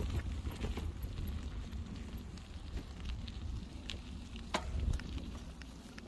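Bicycle riding over a rough woodland trail: a steady low rumble of wind on the microphone with scattered clicks and crackles from the tyres over twigs and stones, and a few sharper knocks, fading slightly toward the end.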